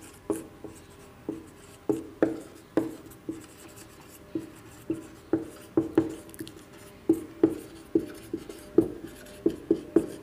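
Marker writing on a whiteboard: a run of short, irregular strokes of the tip against the board, about two a second, coming faster near the end.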